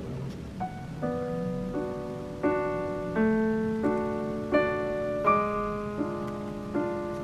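Background piano music: gentle, unhurried notes and chords, a new one struck about every three-quarters of a second and left to ring.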